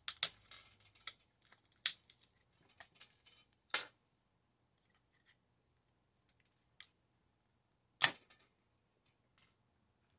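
Side cutters biting and crushing small plastic and metal parts pulled from a microwave: sharp snaps and clicks. Several come in the first four seconds, then two more, the loudest about eight seconds in.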